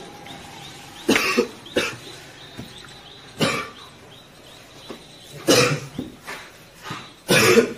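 A young man coughing repeatedly, about six coughs in four bouts one to two seconds apart. It is the persistent cough of a character who will be diagnosed with tuberculosis.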